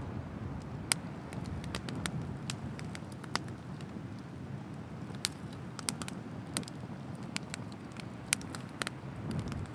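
Wood bonfire crackling: irregular sharp pops and snaps of burning firewood, two louder ones about a second in and near the end, over a low steady rush.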